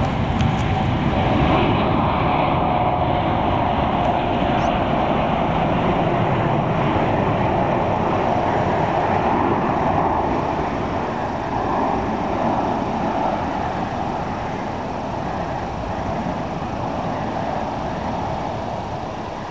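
Jet noise from a Boeing 747-8 Freighter's four General Electric GEnx turbofans as it lifts off and climbs away: a steady rumble with a faint whine in the first few seconds, slowly fading over the second half.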